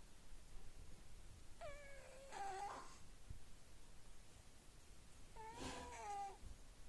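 Overweight American Shorthair cat snoring, each breath carrying a squeaky pitched tone. Two such breaths, about four seconds apart, the first in two parts.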